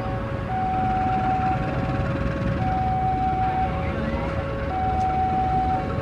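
A two-tone hi-lo siren switching between a higher and a lower note about once a second, over the low steady rumble of a diesel locomotive idling.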